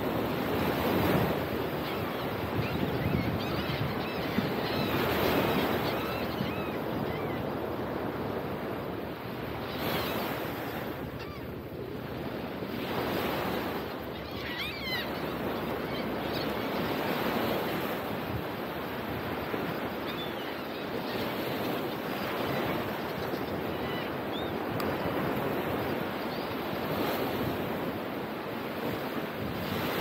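Ocean surf breaking and washing up a sandy beach, swelling and easing every few seconds, with wind buffeting the microphone. Faint high bird calls come through now and then.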